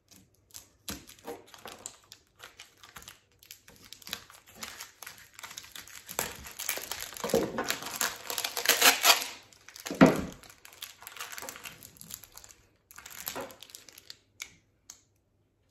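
Clear plastic wrapping being cut with a knife and pulled off by hand: repeated crinkling and crackling, densest in the middle, with one thump about ten seconds in.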